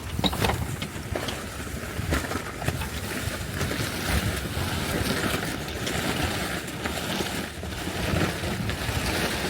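Sailing yacht under way: wind buffeting the microphone over the rush of water along the hull, with a few faint knocks.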